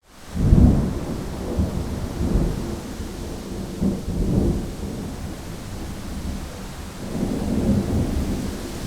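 Thunder rumbling with wind noise: a low, rolling rumble that swells and fades several times, loudest about half a second in, over a faint steady hiss.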